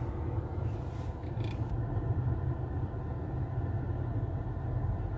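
Car engine running at low revs, heard from inside the cabin as the car reverses slowly: a steady low hum with no sudden sounds.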